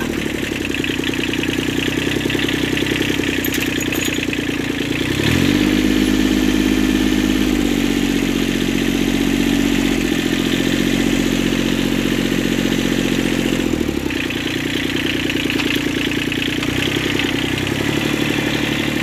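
Kubota diesel tractor engine running. About five seconds in it revs up and holds a higher, louder note for some eight seconds, then drops back to a lower speed.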